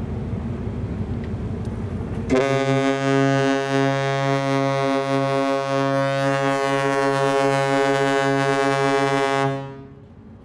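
The Azamara Journey's ship horn sounds one long, loud, deep, steady blast of about seven seconds, then cuts off. A low rumble of wind and ship noise runs before it.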